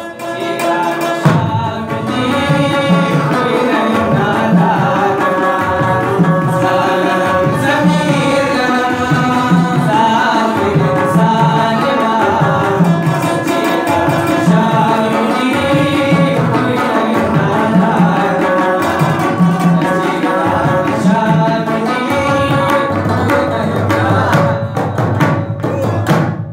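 Pashto rabab playing a quick plucked melody over a steady drum beat. The music breaks off at the very end.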